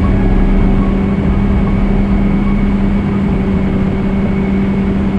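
Yamaha WaveRunner personal watercraft running at a steady cruising speed, its engine holding one even pitch under a rush of wind and water noise.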